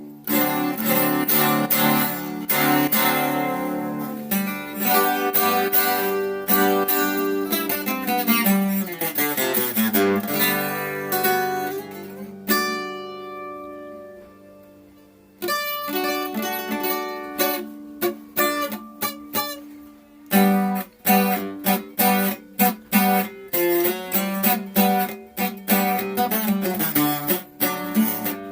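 Acoustic guitar played solo: strummed chords and picked runs, thinning near the middle to a few ringing notes, then quick, even strumming in the last third. The strings are the point of the test, but whether this is the old or the new set is not known.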